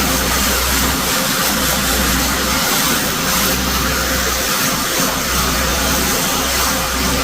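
Pressure washer running steadily: the engine's low drone under the loud hiss of the high-pressure water spray on the driveway.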